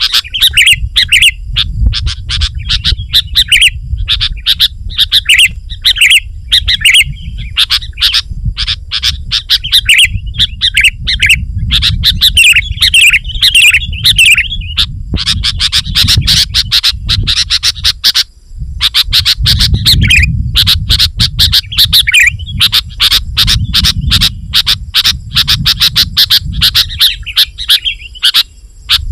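Sooty-headed bulbul calling rapidly and almost without pause, dense strings of bubbly chirping notes with a short break about two-thirds of the way through. A low rumble lies under the calls.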